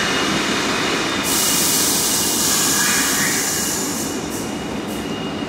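R62A subway car moving through a station, with a steady rumble of wheels and running gear. A loud hiss of air starts about a second in and fades after a few seconds, followed by a couple of short spurts.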